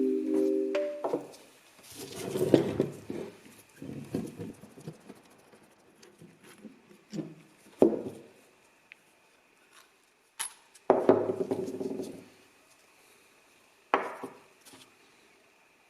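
Metal parts of a rusty hand drill clinking and rattling as it is handled, in irregular clusters with quiet gaps between. A sustained musical chord dies away in the first second.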